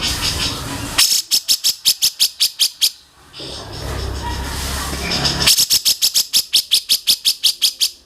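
A songbird giving rapid series of sharp repeated high notes, about seven a second, in two runs of a couple of seconds each, with a low steady background noise in the gap between them.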